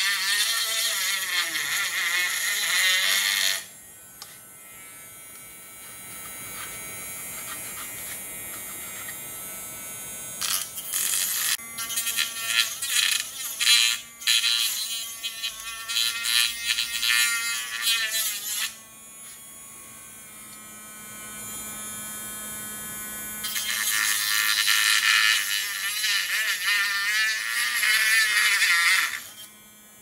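Rotary tool with a small cutting disc cutting into the seam of a sealed plastic AC adapter case. Its high motor whine gets louder and rougher each time the disc bites into the plastic: for the first few seconds, on and off in the middle, and again over the last several seconds. In between it runs lighter and quieter.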